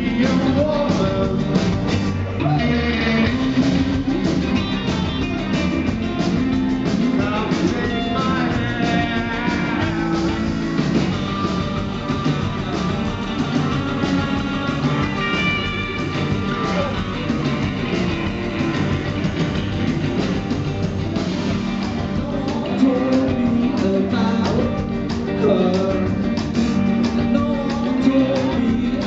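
Live rock band playing at full volume: electric guitars, bass and drums with a singing voice over them, heard through the venue's PA from the audience.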